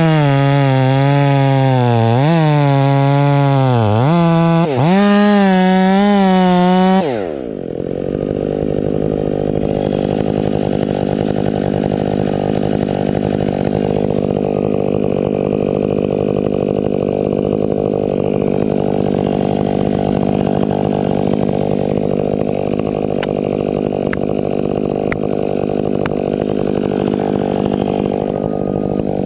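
Husqvarna 500i two-stroke chainsaw running at high revs, its pitch sagging and recovering as it cuts. About seven seconds in it comes off the throttle and settles to a steady idle.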